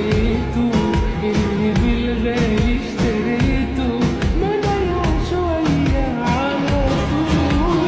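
Background pop-rock song with a steady beat and a singing voice.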